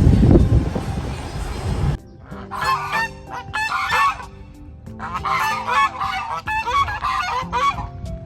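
Wind buffeting the microphone for about two seconds, then after a sudden cut, geese honking in repeated clustered bursts of calls.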